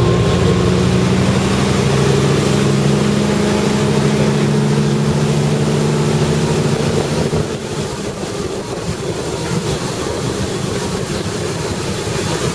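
Exhaust of a 2001 Super Air Nautique wakeboard boat's inboard engine, pulling hard to lift a wakeboarder out of the water, a steady low drone. About seven and a half seconds in, the engine note drops back and the rushing of the wake and spray comes to the fore.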